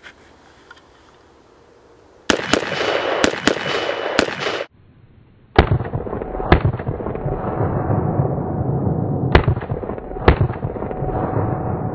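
Short-barrelled AR-15 rifle with a five-prong flash suppressor fired in two strings: five quick shots, then after a brief break four more spaced one to three seconds apart. Each shot is sharp and leaves a ringing tone from the suppressor's prongs.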